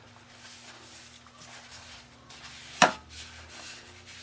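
Faint handling noises on a workbench over a low steady hum, with one sharp knock about three seconds in.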